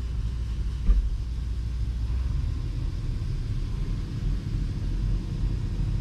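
Steady low rumble of farm machinery running, the combine unloading grain into a grain cart, with a single short thump about a second in.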